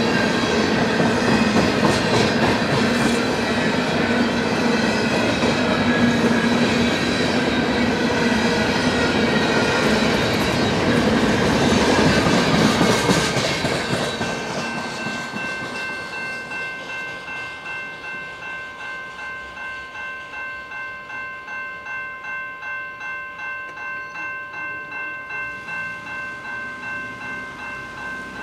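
Freight train of steel coil cars rolling past, its wheels clattering over the rails, until the end of the train clears about 13 seconds in and the rail noise fades away. Throughout, a railroad crossing bell rings in steady, evenly repeated strokes, and it is left ringing alone once the train has gone.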